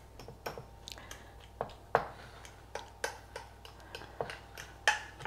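Irregular clicks and taps of a utensil against a glass dish as soft cottage cheese is mashed and mixed, a few knocks a second with two louder ones near the middle and near the end.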